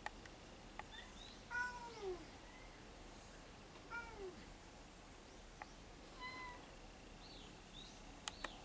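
A cat meowing faintly several times, each call short and falling in pitch. Two sharp clicks sound close together near the end.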